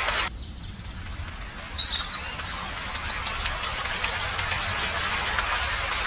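Small birds chirping in short, quick high notes between about one and four seconds in, after steady rain patter drops away. The rain-like hiss with scattered drops then comes back.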